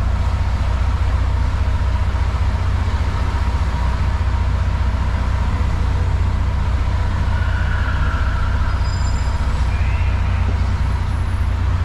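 Simulated truck engine from a truck-driving game, running with a steady, deep drone. A few faint, short higher tones come in about two-thirds of the way through.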